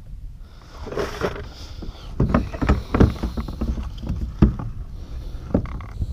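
Knocks and clunks on a fishing kayak as gear and the paddle are handled, a cluster of sharp knocks in the middle and a few more near the end, over a steady low wind rumble on the microphone.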